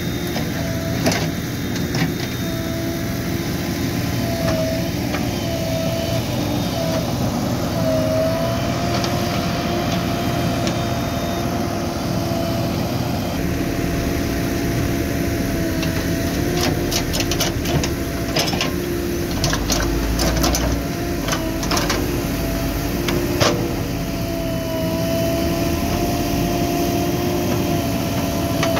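JCB 3DX backhoe loader's diesel engine running steadily under working load, with a wavering whine over it. A cluster of short sharp clanks comes about two-thirds of the way through.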